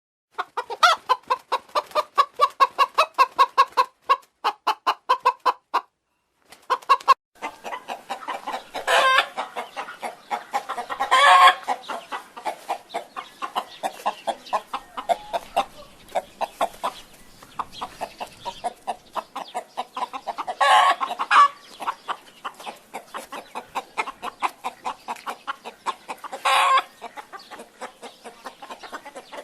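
Domestic chicken clucking in fast runs of short clucks, with a brief pause about six seconds in. Four louder, drawn-out cackling calls stand out over the steady clucking.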